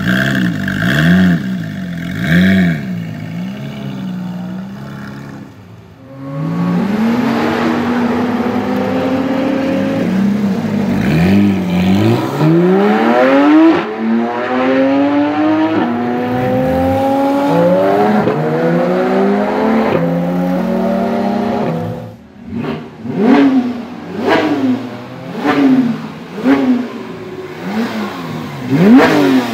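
Porsche 991 GT3's 3.8-litre flat-six with a Cargraphic aftermarket exhaust. It blips twice from idle and settles back to idle, then accelerates hard through several upshifts with the pitch climbing in each gear. Near the end comes a quick series of about six sharp rev blips.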